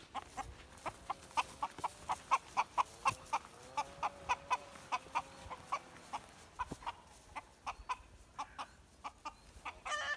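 A chicken clucking in a quick, even series of short calls, about four a second, ending in a longer drawn-out call near the end.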